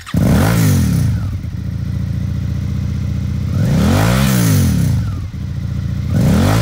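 2019 Suzuki SV650X's 645 cc 90-degree V-twin through a Yoshimura Alpha slip-on exhaust, loud, revved up and dropping back to idle. There are throttle blips about half a second in and about four seconds in, with a third rising near the end.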